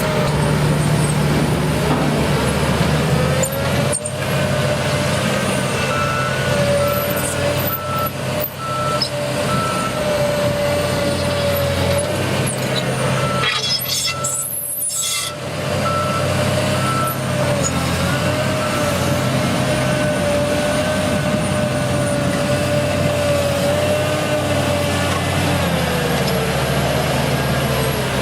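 A heavy construction machine's engine running steadily, with a reversing alarm beeping at an even pace on and off. About halfway through the sound briefly thins out, then the engine and beeping carry on.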